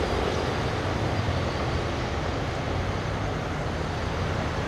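Steady outdoor rumble and hiss of distant road traffic, with no single event standing out.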